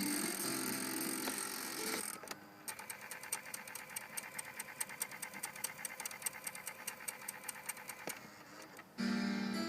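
Car cassette player mechanism grinding: a run of rapid, evenly spaced clicks, about five or six a second, lasting several seconds. It sounds like a starter motor without enough power. Tape music plays before it, and again near the end.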